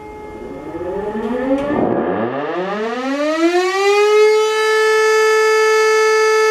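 Hörmann E57 electric rotary siren spinning up: its pitch rises in one long glide and settles into a steady, loud single tone about four and a half seconds in. Before the rise a fainter steady tone is heard.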